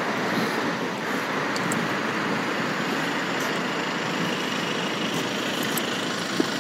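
Steady road traffic noise from a wide multi-lane city road, with cars running past.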